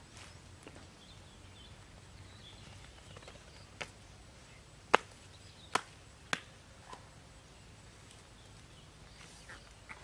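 Five short, sharp clicks or snaps spread over about three seconds, the second one much the loudest, with a few faint high chirps before them.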